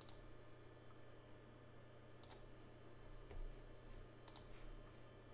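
Three computer mouse clicks about two seconds apart, each a quick press-and-release double click, over faint room tone with a low steady hum.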